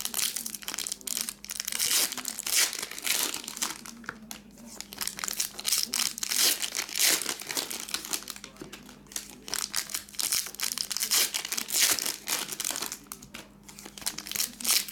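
Foil trading-card pack wrappers being torn open and crinkled by hand: an irregular crackling that comes in spurts with short lulls.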